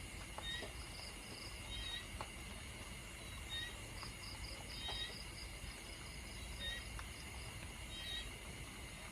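Night chorus of calling insects and frogs: short rising chirps about once a second and a pulsing high trill, over a faint steady rain hiss with a few soft drip-like ticks.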